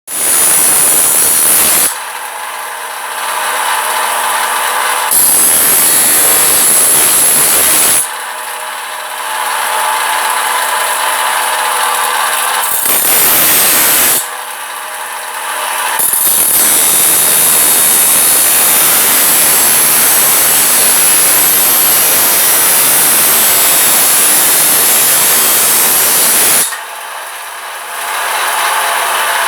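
Electric power tool, most likely an angle grinder, working steel. Four loud stretches of grinding or cutting, the longest about ten seconds in the second half, alternate with quieter spells where the tool runs freely with a steadier whine.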